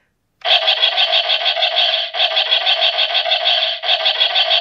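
Jazwares Micro Galaxy Squadron Millennium Falcon toy's electronic cannon turret sound effect playing from its small built-in speaker. It is a loud, rapid pulsing that starts about half a second in. It repeats in a continuous loop while the button is held, with a brief break every second and a half to two seconds.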